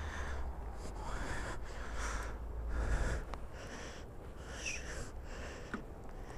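A person breathing heavily right at the microphone, a run of short hissy breaths, over a low rumble that dies away about three seconds in.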